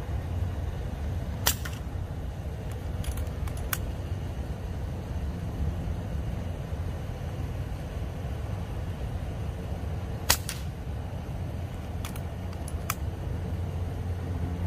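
Steady low rumble of distant road traffic, with a few sharp clicks and one louder snap about ten seconds in.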